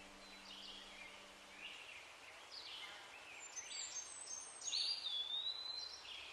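Songbirds singing in a forest: a string of short, high chirps and whistled notes, some sliding down in pitch and one held note near the top, growing busier and louder in the middle before thinning out.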